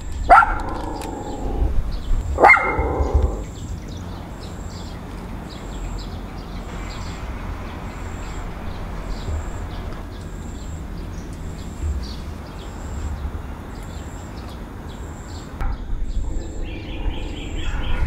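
A dog barks twice, about two seconds apart, near the start, over a steady low rumble.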